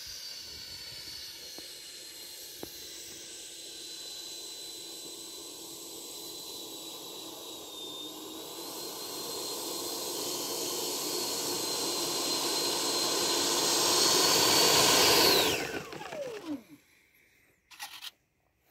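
The 80 mm electric ducted fan of an E-Flite F-16 Falcon model jet whining at low power as the jet taxis over grass, growing louder as it comes closer. About fifteen seconds in, the throttle is cut and the fan spools down, its whine falling quickly in pitch until it stops.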